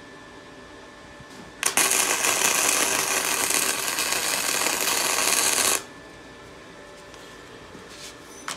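Welding arc from a Harbor Freight welder laying a bead on a steel shift lever: one continuous weld of about four seconds that starts abruptly about one and a half seconds in and cuts off sharply.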